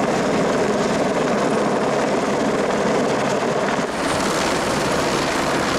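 Helicopter hovering overhead with a slung load, its rotor and turbine giving a loud, steady noise, with a brief dip about four seconds in.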